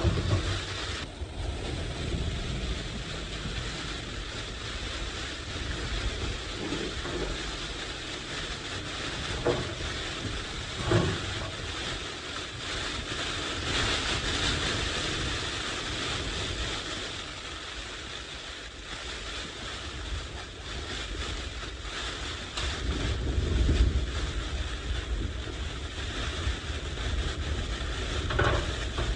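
Blizzard wind blowing steadily in gusts, with low rumbling buffeting of the microphone that swells and eases. A couple of short knocks about ten seconds in.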